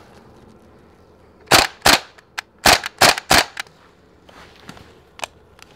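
WE AK gas blowback airsoft rifle firing single shots on semi-auto with no BBs loaded: five sharp blowback reports, each a gas pop with the bolt cycling, spaced over about two seconds starting about a second and a half in. A few faint clicks follow.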